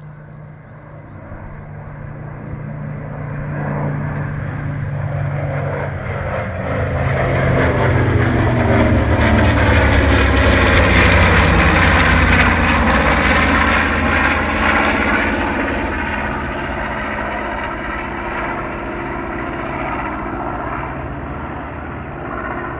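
Formation of small propeller aircraft flying past overhead. Their engine drone builds, peaks about halfway through with a sweeping, phasing sound, then fades off.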